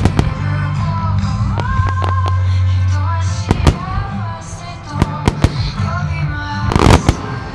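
Music with a sustained melody plays while firework shells burst overhead: a scattered series of sharp bangs, with the loudest cluster of crackling bangs about seven seconds in.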